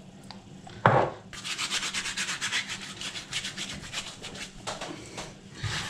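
A single knock about a second in, then rapid, dry scratchy rubbing: hands crushing dried rosemary between the palms.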